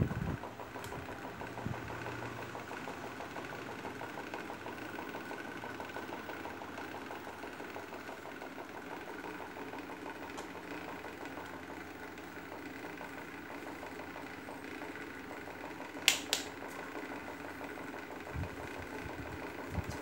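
Small electric desk fans running: a steady motor hum and whir of spinning blades. A single sharp click sounds about sixteen seconds in.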